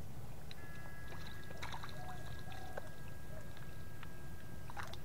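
Water splashing and trickling in a shallow pond as people wade forward through it, with a faint steady high whine underneath.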